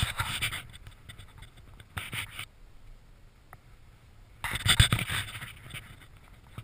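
Close scraping and rustling noises in three short bursts, at the start, around two seconds in and loudest about five seconds in, from movement right at the microphone.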